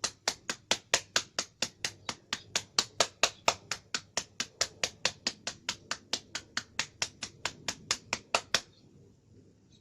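Rapid, evenly spaced sharp taps, about four or five a second, from a hand tapping in a totok acupressure treatment; they stop abruptly near the end.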